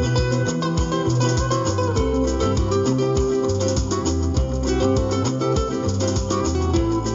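Acoustic guitar playing quick picked single-note lines in the natural minor scale, over a steady low bass line and a regular percussive beat.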